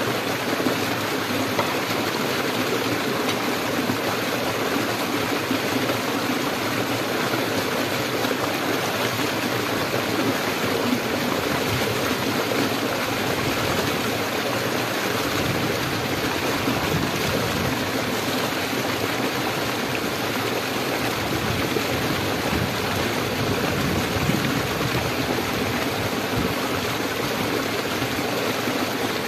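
Small rocky stream running over stones and spilling down a short cascade: a steady, even sound of flowing water.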